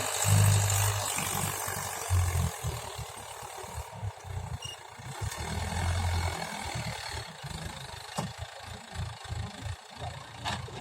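Mahindra tractor's diesel engine running as it pulls a plough, the sound rising and falling.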